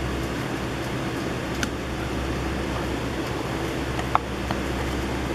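A steady low hum runs underneath. Over it come a few light clicks and snaps as baseball trading cards are slid off the front of a stack, the sharpest about four seconds in.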